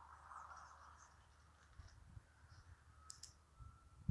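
Near silence: faint outdoor background with a few soft footsteps on a dirt road.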